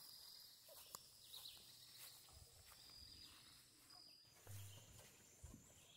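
Near silence: faint rural outdoor ambience with a few faint high-pitched chirps.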